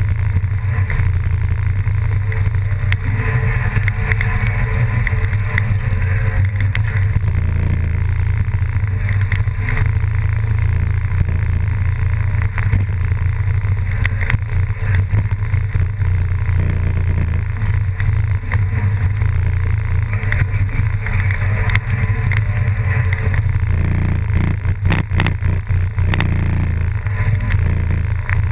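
A steady, loud, low engine drone that runs on without a break.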